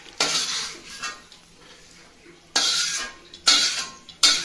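Metal spatula scraping and clinking against a kadhai as fried cashews are scooped out of the oil into a steel bowl, in about five separate strokes.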